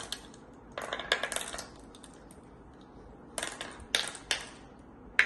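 Glass marbles clicking as they are dropped one by one into the holes of a wooden congkak board and knock against the marbles already there: a player sowing marbles round the board. There are two runs of quick clicks, about a second in and again after about three and a half seconds.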